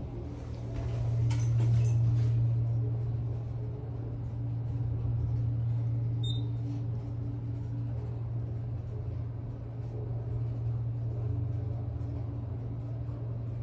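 Hydraulic elevator cab descending: a steady low hum of the ride, swelling about a second in as it gets under way, with a short high beep about six seconds in as it passes a floor.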